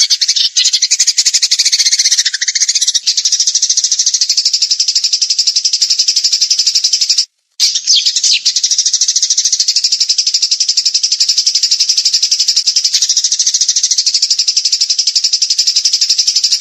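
Recorded songbird giving a fast, high, buzzing trill that goes on almost without pause, broken once by a short gap about seven seconds in. This is masteran birdsong, played for captive birds to learn from.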